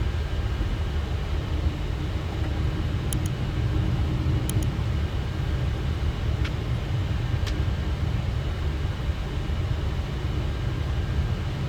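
Steady low rumble on a Boeing 737 flight deck while taxiing after landing, the engines at idle and the airframe rolling, with a few faint ticks.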